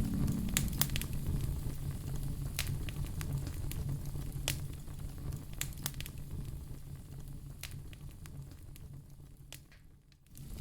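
Wood fire crackling in a fireplace: scattered sharp pops and snaps over a low rumble, fading away near the end.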